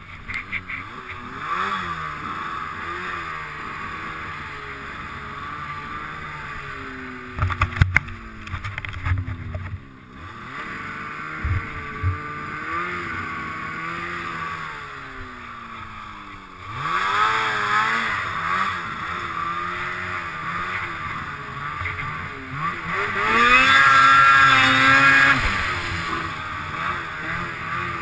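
Two-stroke snowmobile engine, bored out to 880 cc and being broken in, running under load with the revs rising and falling as it rides. A few knocks come about a quarter of the way in, and it revs up hardest and loudest near the end.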